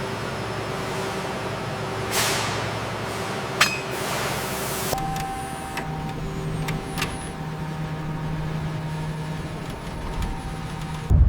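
Heavy machinery running with a steady hum, broken by several hissing, air-like whooshes and a sharp metallic click about three and a half seconds in.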